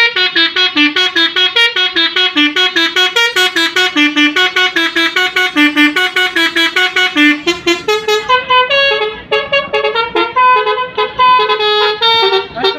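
Bus 'telolet' melody horn (Basuri multi-tone horn) playing a fast tune of short, loud notes, about five a second. About seven seconds in it changes to a different tune with longer, lower notes, as in a horn battle between buses.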